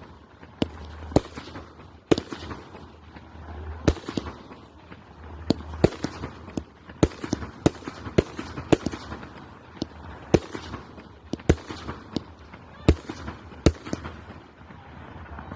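Overlord firework cake firing a barrage of shots: sharp bangs about one or two a second at uneven spacing, with crackling from the bursting effects between them.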